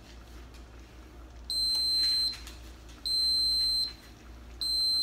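Electric rice cooker beeping its finished signal: three high-pitched beeps, each just under a second long and about a second and a half apart, the first coming about a second and a half in. The beeping means the rice has finished cooking.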